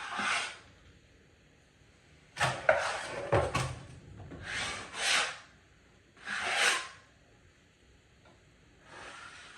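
Drywall taping knife scraping across the wall in about five separate strokes, spreading joint compound.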